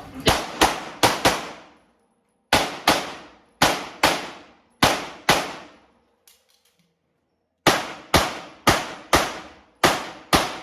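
Pistol shots fired rapidly in a competition stage, about sixteen in all, mostly as quick pairs half a second apart, with a pause of about two seconds midway.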